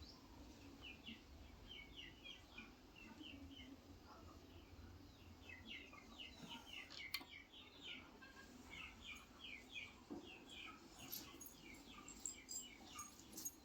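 Faint twittering of small birds: clusters of quick, high chirps, with a few sharp clicks near the end.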